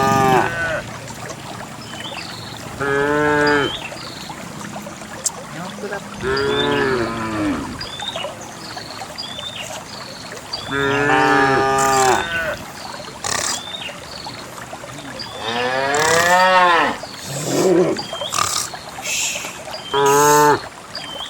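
Cows mooing one after another, about seven long calls spread over the stretch, over a steady background noise between calls.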